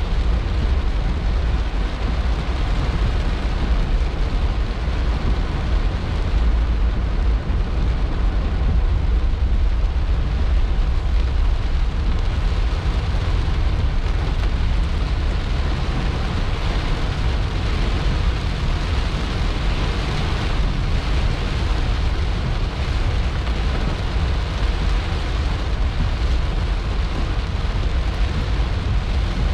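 Heavy rain beating on a car's roof and windscreen, heard from inside the cabin as a steady dense hiss over a deep rumble from the car driving through the downpour.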